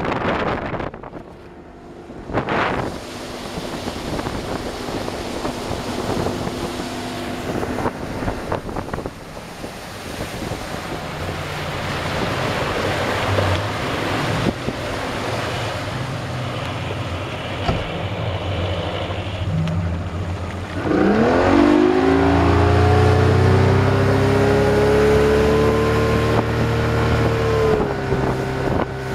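Rebuilt Mercury 135 hp outboard motor running under way, with wind and water rushing past. About two-thirds of the way through it is opened up: its pitch rises sharply, then holds steady, louder and higher, while it is run in after a complete rebuild.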